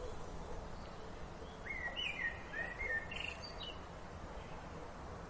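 A bird calls with a short phrase of sliding, whistled notes lasting about two seconds, starting a little under two seconds in, over steady outdoor background noise.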